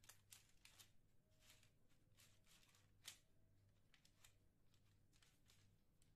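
Near silence, with faint scrapes and rustles of a metal spoon pushing soft cookie dough onto parchment paper, and one sharper click about three seconds in.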